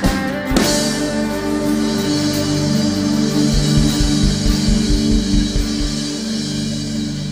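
Live church worship band playing an instrumental passage: drums and guitar under held chords, with a cymbal crash about half a second in. Near the end the drums drop out, leaving only the sustained chords.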